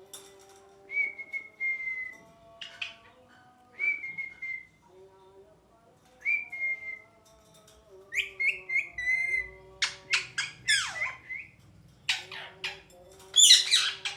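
Ringneck parakeet calling: several short held whistles, sharp squawks, and a quick run of chirps about eight seconds in. Then comes a falling screech, and near the end the loudest of all, a harsh screech.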